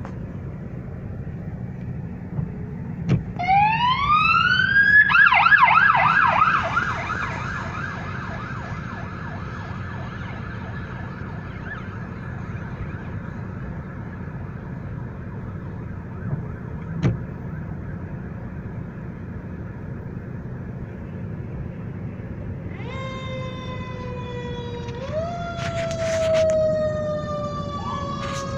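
Fire department emergency vehicle sirens heard from inside a car, over a steady low rumble. About three seconds in, a siren winds up in pitch, switches to a rapid yelp, then holds a steady wail that fades. Near the end a deeper siren with several tones slides slowly down in pitch and is pushed back up twice.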